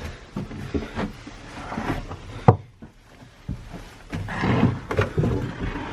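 Footsteps and scattered knocks of someone climbing narrow stairs, with one sharp knock about two and a half seconds in.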